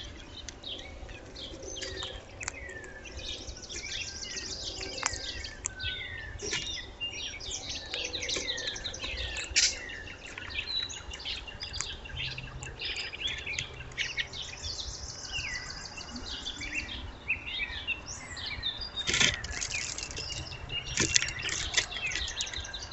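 Chorus of several wild songbirds calling at once: many short chirps and downward-slurred whistles, with a few high buzzy trills, over a low steady background rumble.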